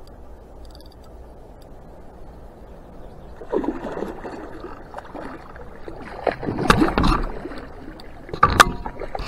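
Water splashing and sloshing in irregular bursts that start about a third of the way in and are loudest near the end: a hooked mirror carp thrashing at the surface as it is brought in.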